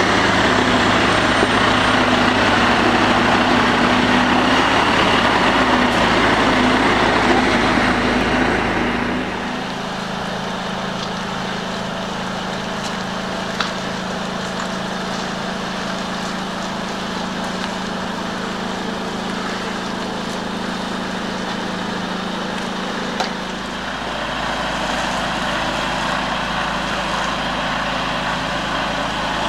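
Heavy-haulage truck's diesel engine running close by, loud for the first third. It then drops suddenly to a quieter, steady engine hum broken by two sharp clicks. A deeper low rumble comes back near the end as a truck approaches.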